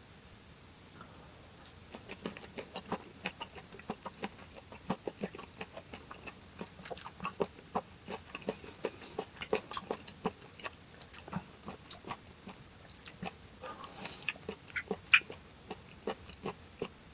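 Close-miked chewing of hong-eo samhap (fermented skate with boiled pork and kimchi): a run of wet mouth smacks and clicks, several a second, starting about two seconds in and stopping near the end.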